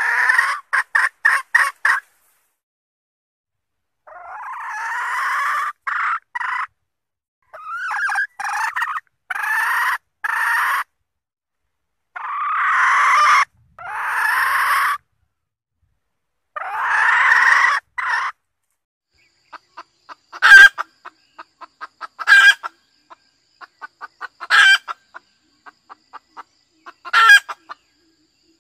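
Junglefowl hens cackling: a quick run of short 'kek' notes, then several drawn-out harsh calls of about two seconds each, some followed by a few short notes, and in the last third four sharp, very short calls with faint chatter between them. This is the hen's 'ngekek' cackle, described as a call for mating and used as a lure for wild junglefowl cocks.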